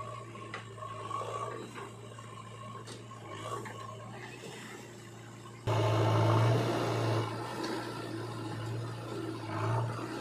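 A heavy machine's diesel engine runs steadily under scraping and rubbing noise, typical of earth being dug and moved. The sound jumps suddenly louder about six seconds in.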